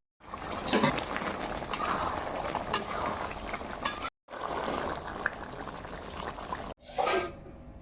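Jackfruit and potato curry bubbling and sizzling in a pan, with scattered small pops and clicks. The sound drops out for a moment about four seconds in and again near seven seconds.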